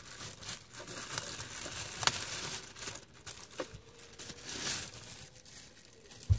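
Clear plastic bag crinkling and rustling as it is pulled off a portable battery power station, with a couple of sharp clicks and a low thump near the end.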